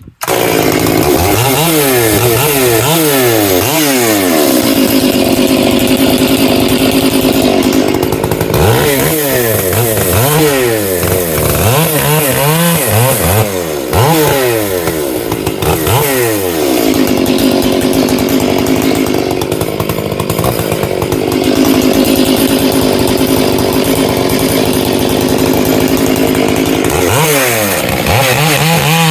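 Two-stroke chainsaw bucking firewood: the engine blips up and down in quick revs, then holds at full throttle through long steady cuts, twice, before revving again near the end.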